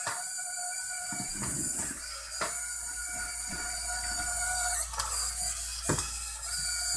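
Small DC gear motors of a hobby Arduino robot whining steadily as it drives, with a few sharp knocks as it bumps into things.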